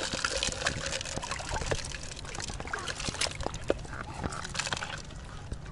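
Seawater sloshing and trickling among shoreline rocks, with many scattered sharp clicks and a louder splash-like burst right at the start.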